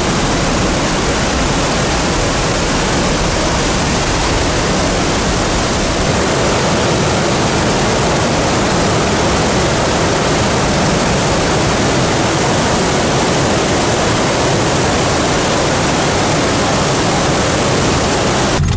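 Sutherland Falls and its whitewater rapids: a loud, steady rush of falling and churning water that cuts off near the end.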